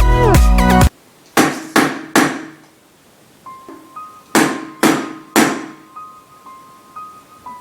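Electronic music cuts off about a second in. Then comes knocking on a door: three knocks in quick succession, a pause, and three more knocks. Faint, sparse musical notes sound underneath.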